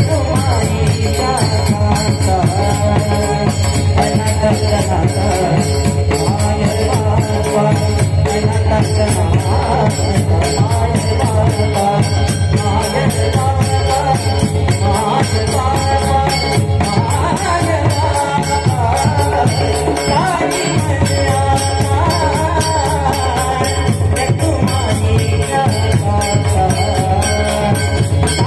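Devotional bhajan music of a Marathi abhang: a wavering melodic line over rapid, steady jingling percussion.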